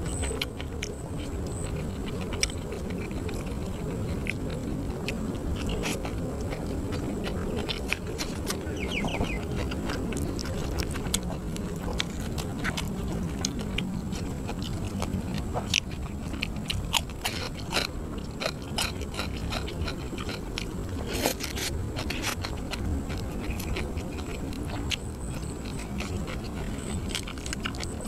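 Close-miked chewing and crunching of grilled catfish, with many short sharp clicks and mouth smacks, over a faint steady high whine.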